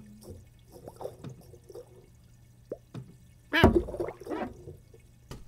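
Cartoon water sound effects of a cat's paw dabbling in a fish tank: small drips and plops, then a loud sudden splash about three and a half seconds in.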